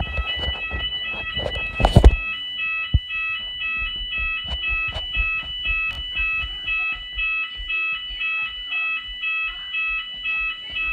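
Fire alarm going off, a high electronic tone pulsing rapidly on and off without a break. Two loud knocks, one at the very start and a louder one about two seconds in.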